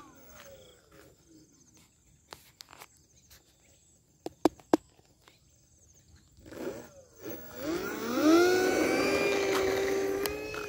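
Small brushless electric motor (2206, 1500 kV) of a foam RC plane turning a 10x4.5 propeller. It is quiet at first, with a few sharp clicks about midway. Then, about seven seconds in, the motor spools up with a rising whine and holds a loud, steady high hum at high throttle.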